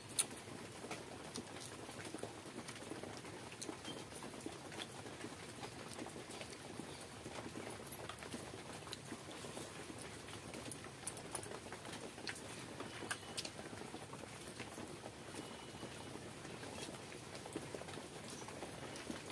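Close eating sounds of a person eating pakhala (rice soaked in water) by hand: soft chewing and mouth smacks with scattered small clicks, and the wet sound of fingers scooping rice from a steel bowl.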